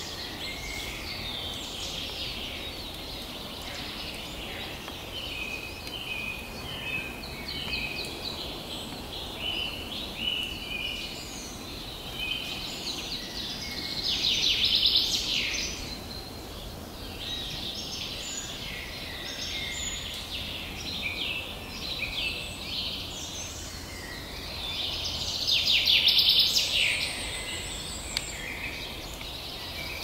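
Songbirds singing and calling in a spring pine forest: many short overlapping calls and songs, with two louder, rapid trilling phrases about 15 and 26 seconds in, over a low, steady background noise.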